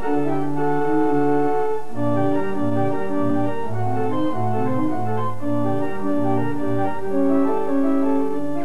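Church pipe organ being played: held chords that change every half second or so over a moving bass line.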